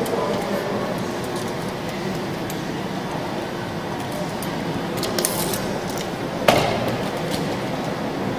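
Steady background noise of a large workshop hall, with a few light clicks around five seconds in and one sharp knock about six and a half seconds in, from hand tools and a metal rod handled on a wooden workbench.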